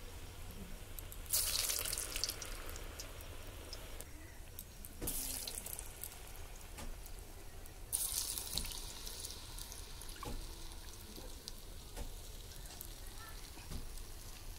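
Medu vadas deep-frying in hot oil in an iron karahi: a steady sizzle with small crackles, swelling three times into loud hissing surges that die away.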